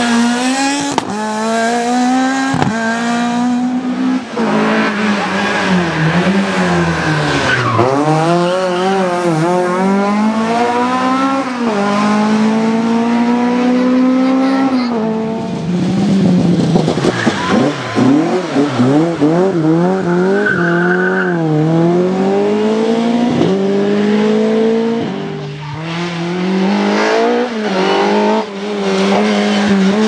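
Opel rally car engines, a Corsa S1600 among them, at full throttle, revving up and dropping pitch again and again as they shift through gears on a stage. Tyres squeal and a few sharp cracks are heard between the engine notes.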